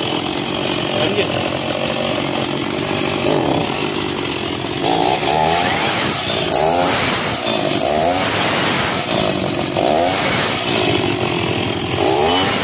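Stihl petrol two-stroke chainsaw running off the wood with no load. It runs steadily at first, then from about five seconds in it is revved again and again, its pitch rising and falling with each throttle blip.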